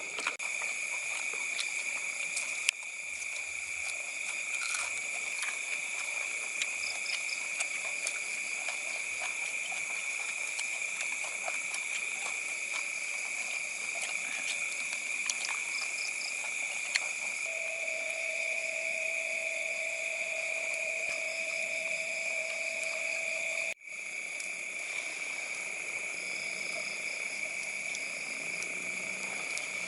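Night-time insect chorus: a steady, high-pitched trill, with a lower steady call joining for several seconds in the second half. It drops out for a split second near the end, then carries on.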